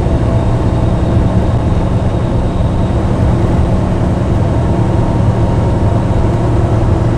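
Semi-truck diesel engine and road noise heard inside the cab while driving, a steady low drone.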